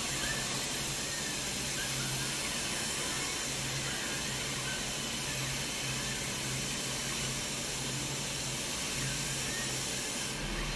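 Robot paint sprayer coating a car body in a spray booth: a steady hiss of spray and booth air, over a low hum that comes and goes.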